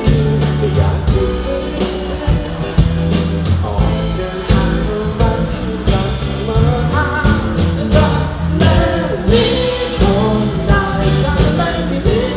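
Live band and singer performing a Thai pop song through a PA system, recorded with unclear sound.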